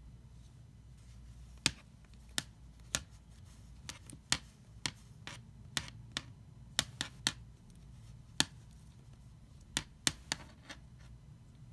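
A Sharpie marker clicking and tapping on a hard wood-grain floor as a kitten bats it with its paws: a string of irregular sharp clicks that starts about a second and a half in.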